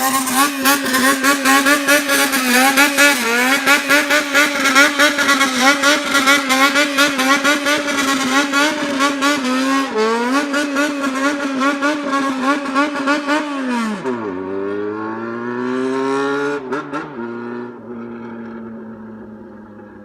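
Yamaha XJR400's air-cooled inline-four held at high revs and blipped in a rhythmic bōsōzoku-style throttle 'call', its pitch dipping and climbing again and again. About 14 seconds in, the revs fall away, rise once more and settle to a lower, quieter idle.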